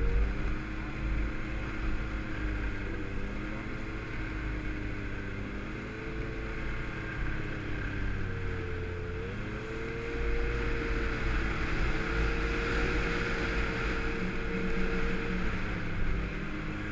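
Yamaha snowmobile engine running under way on a trail, its pitch wavering, dipping briefly about eight seconds in, then rising and holding steady and louder as the sled speeds up.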